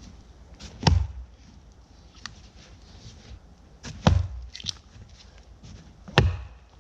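Axe blows biting into a tough tree trunk: three heavy chops a couple of seconds apart, with a lighter knock just after the second.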